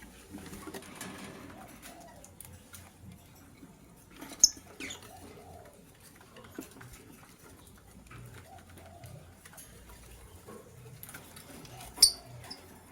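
Caged lovebirds calling, with two short, sharp, loud chirps, one about four seconds in and one near the end, over softer low calls and light scratching and pattering.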